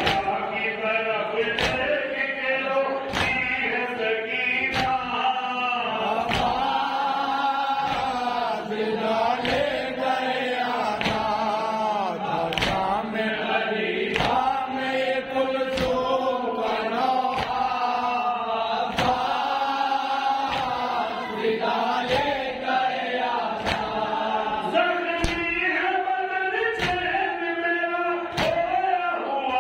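Male voices chanting a noha together, a lamenting melody in unison, with a steady beat of sharp strikes about every one and a half seconds, the rhythm of matam chest-beating by the anjuman.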